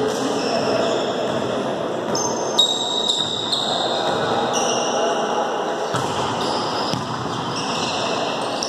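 Volleyball rally in a gymnasium: a sharp ball hit about two and a half seconds in, over a steady echoing hubbub of players moving on the court. Faint high tones shift up and down in pitch throughout.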